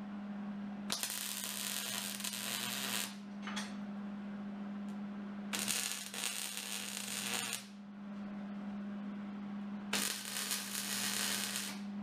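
MIG welder laying three short weld beads on steel, each a crackling hiss of about two seconds, with a brief blip between the first two. A steady low hum runs underneath.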